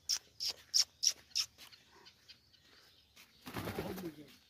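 A quick run of short sharp sounds, about three a second, then near the end a brief flurry of wingbeats as a white pet bird flaps up onto a mud wall.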